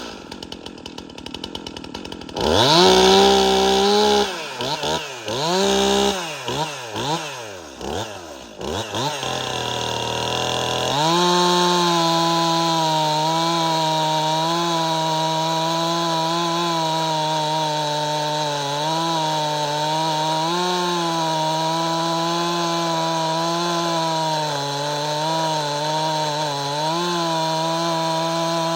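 Stihl MS261C two-stroke chainsaw, bone stock, blipped through about five quick revs. From about eleven seconds in it is held at steady high revs with small dips in pitch, as in a long cut through hard, dry hickory.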